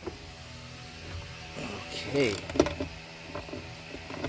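Hand ratchet clicking a few separate times as it works the seat belt anchor bolt loose.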